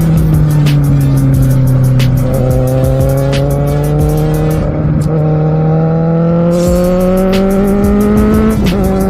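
Kawasaki Z750R's inline-four engine heard from on board: it winds down off the throttle, then pulls up through the revs. Its pitch drops briefly about five seconds in and again near the end, as it shifts up a gear.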